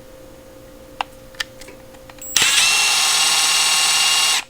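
Milwaukee M12 Fuel 2555-20 1/2-inch stubby impact wrench free-spinning with no load on its lowest speed setting: a steady whine that starts a little past halfway, holds for about two seconds and cuts off sharply when the trigger is released. Two faint clicks come before it.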